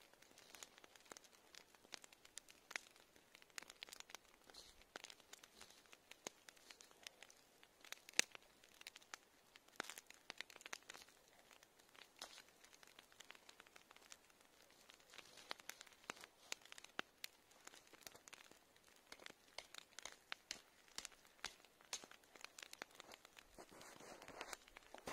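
Faint, irregular clicks and snaps of thin branches being cut with a knife and broken by hand, with light rustling of twigs; one sharper snap about eight seconds in.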